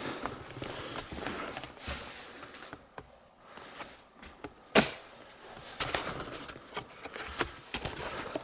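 Footsteps and handheld camera handling in an empty room: scattered light clicks and knocks over faint hiss, with one sharp knock about five seconds in.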